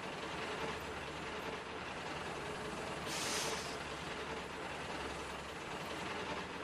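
Railway locomotive sound effects: a steady engine rumble, with a short hiss of released pressure about three seconds in.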